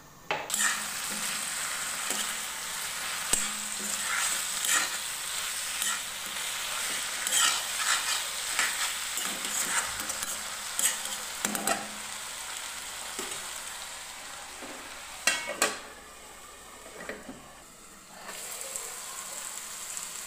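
Chicken pieces sizzling as they fry in oil in an aluminium kadai, with a metal spatula scraping and clicking against the pan as they are stirred. The sizzle drops away for a moment near the end, then picks up again.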